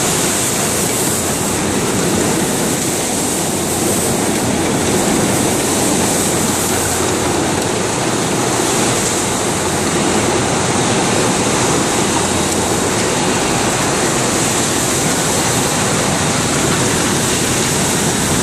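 SIG Blomax 16 PET stretch blow moulding machine running: a loud, steady wash of machine noise with a high hiss, without a clear beat.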